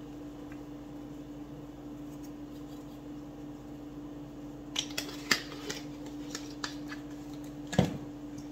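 Spice jar shaken over a glass mixing bowl: a few light clicks and taps about five seconds in, then a single knock near the end, over a steady low hum.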